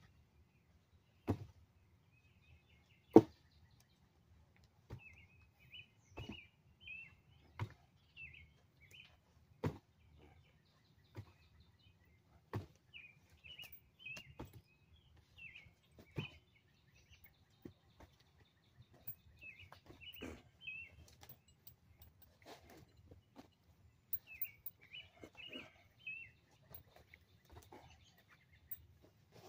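Dull thumps of a body bumping against a knotty tree trunk, about a dozen at uneven intervals, the loudest about three seconds in. Small birds chirp repeatedly between the thumps.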